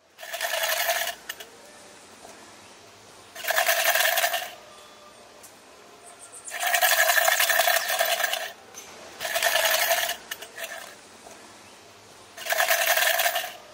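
Five bursts of rapid rattling, each one to two seconds long, the middle one the longest, with a faint hiss between them.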